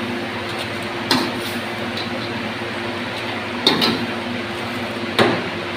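Cooking utensils knocking against a pot or pan three times, sharp and brief, over a steady kitchen background hiss and hum.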